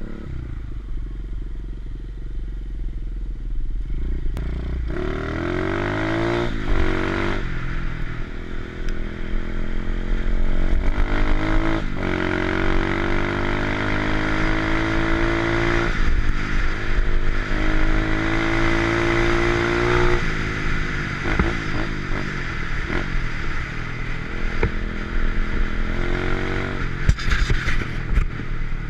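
A 125cc pit bike's single-cylinder four-stroke engine is ridden hard. Its pitch climbs and drops back at each gear change, several times over, then it runs more evenly at speed.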